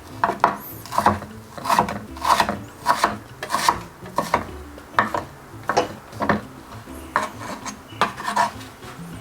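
Kitchen knife chopping raw chicken on a cutting board: a steady series of short chops, about one every two-thirds of a second.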